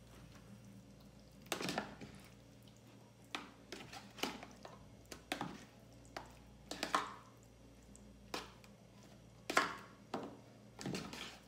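A spoon stirring raw chicken drumettes in lemon juice in a plastic tub: irregular wet squelches and scrapes, about a dozen short ones.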